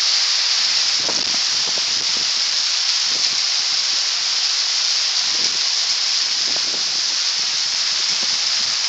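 Hail falling: a steady hiss with scattered small knocks from hailstones striking the ground and surfaces.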